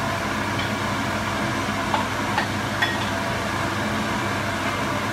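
A wooden spatula tapping and scraping on a glass bowl three times, about a second apart, as chopped cabbage is pushed out into a pan. Under it is a steady fan-like hum.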